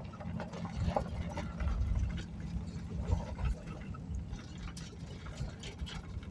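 Van driving on a gravel road, heard from inside the cab: a steady low rumble from the engine and road, with scattered crackles and clicks of gravel under the tyres.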